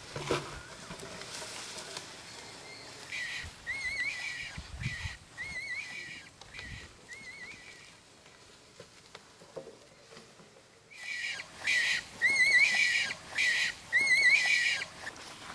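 Rabbit squealing in distress as it is grabbed and pulled from its burrow: a rapid run of short, high, wavering cries in two bouts, the second louder.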